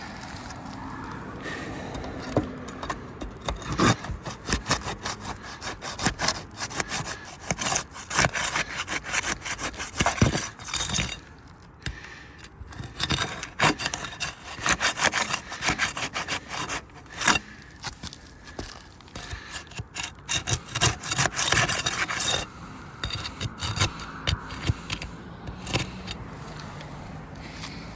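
Flat bar scraping and prying under roof shingles, breaking their sealant strips loose in rapid, repeated rubbing strokes. There is a short lull partway through, and the strokes stop about three-quarters of the way in.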